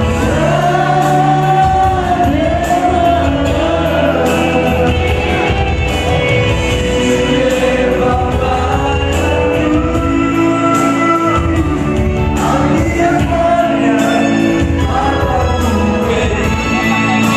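Men singing a Batak song together into microphones over amplified backing music, with long held, gliding notes.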